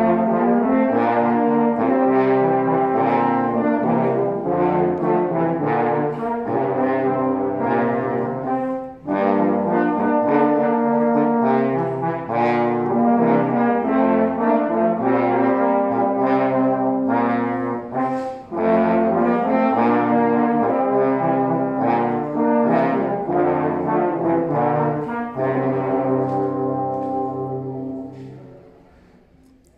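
French horn ensemble playing in sustained chords, with short breaks between phrases about 9 and 18 seconds in. The final chord dies away near the end.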